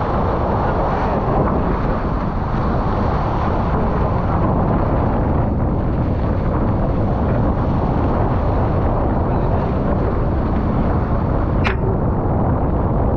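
Strong wind, about 25 knots, blowing over the microphone of a GoPro aboard a J/99 sailing yacht, with water rushing along the hull. A steady loud noise throughout, with a single sharp click near the end.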